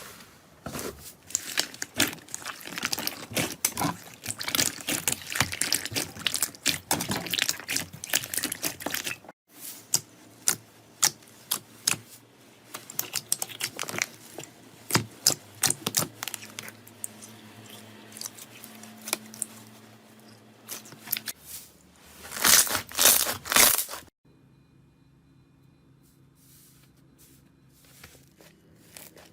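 Slime being squeezed and worked by hand, crackling and popping with dense sticky clicks for the first nine seconds, then sparser. A few louder squelching bursts come about 22 to 24 seconds in.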